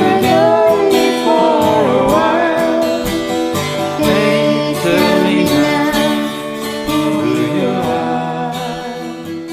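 Closing bars of a song: acoustic guitar strumming with a melodic line, probably voice, bending over it. The music slowly gets quieter over the last few seconds.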